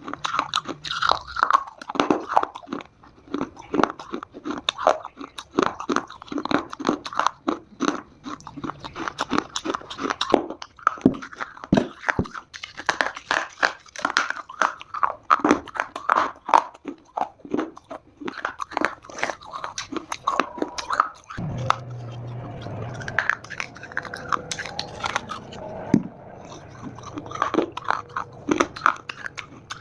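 Close-up biting and chewing of dry Multani mitti (fuller's earth clay), with rapid, sharp crunches. About two-thirds of the way through, the crunches thin out into a few seconds of softer, steadier chewing before the sharp crunching resumes.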